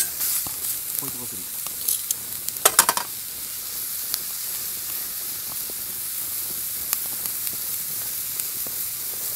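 Food sizzling in oil in a paella pan over a wood fire, a steady hiss with scattered small pops. About three seconds in comes a brief clatter of a utensil against the pan.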